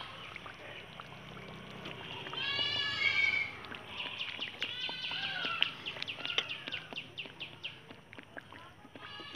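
Animal calls: one drawn-out call that rises at the end about two and a half seconds in, then a run of quick bird-like chirps and clicks.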